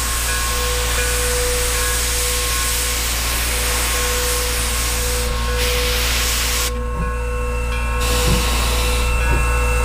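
Steam locomotive No. 17 blowing steam from its open cylinder cocks with a loud, steady hiss as it starts to move, over a steady hum. The hiss breaks off abruptly about two-thirds of the way through, then returns fainter with a few short low knocks.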